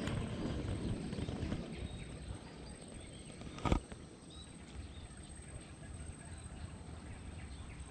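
Quiet outdoor ambience with faint bird chirps. A low rumble on the microphone fades over the first two seconds, and a single sharp click comes about three and a half seconds in.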